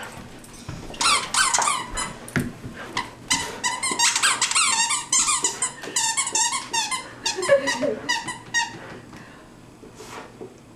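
A dog chewing a squeaky toy: fast runs of short, high squeaks from about a second in, dying away near the end.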